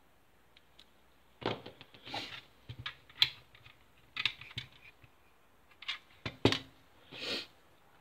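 Small plastic and metal airsoft rifle parts being handled and fitted by hand: irregular sharp clicks and knocks, the loudest about three seconds in and again past six seconds, with a few brief scraping rustles.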